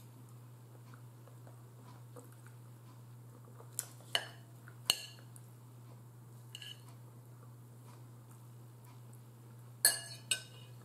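A metal fork clinking against a bowl: a few sharp clinks around the middle and a pair near the end. A steady low hum runs underneath.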